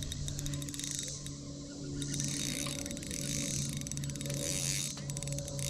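Spinning reel clicking in several runs of rapid ticks while a hooked trout is played on the rod, with the drag set loose.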